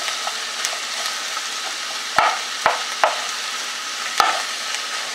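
Green beans and onions sizzling in butter in a pot while a wooden spoon stirs them, the spoon knocking sharply against the pot about five times.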